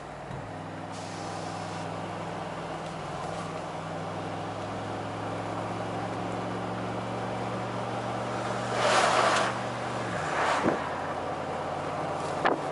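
Mercedes-AMG G63's V8 biturbo engine pulling steadily, its note slowly rising, then dropping about ten seconds in at an upshift of the nine-speed automatic. Two short loud hissing bursts come just before and after the shift, and a sharp click near the end.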